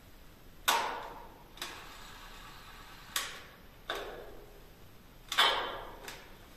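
Six sharp knocks echoing in a bare concrete room, irregularly spaced, each ringing away over about half a second; the first, about a second in, and the fifth, near the end, are the loudest.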